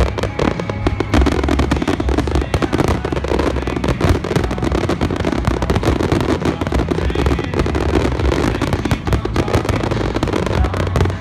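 Fireworks display in a dense barrage: many shells bursting in quick succession, a continuous run of bangs and crackle with no pause.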